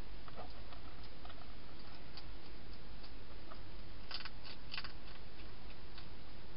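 Wild hedgehog crunching dry food inside a clear plastic feeding box: scattered small clicks, with a quick cluster of sharper clicks about four seconds in, over a steady hiss.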